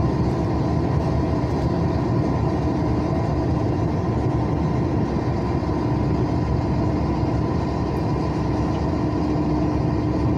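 Diesel truck tractor heard from inside the cab, its engine running steadily at cruising speed, with road and tyre noise from the wet asphalt.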